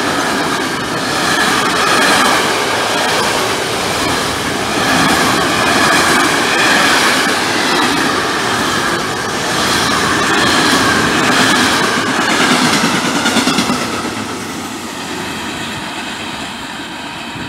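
Freight train of covered sliding-wall wagons passing close at speed: a steady rumble and clatter of wheels on rail, with a wavering high squeal from the wheels over it. The sound fades over the last few seconds as the end of the train moves away.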